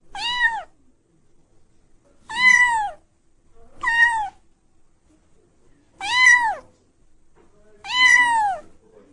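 Kitten mewing: five high-pitched meows about two seconds apart, each rising and then falling in pitch.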